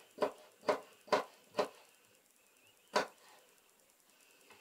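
Kitchen knife slicing a pickled gherkin on a plastic cutting board: the blade knocks on the board four times, about two a second, then once more about three seconds in.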